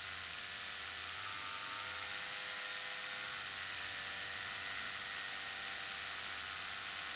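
Paramotor's Vittorazi Moster two-stroke engine and propeller running at a steady throttle in flight, a constant pitched hum over a steady hiss.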